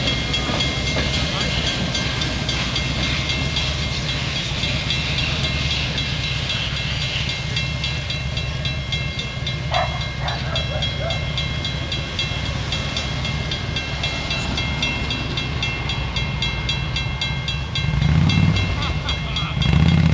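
The tail end of a passenger train rolling past and away down the track: a steady low rumble with faint clicking of the wheels, and high ringing tones that fade out near the end.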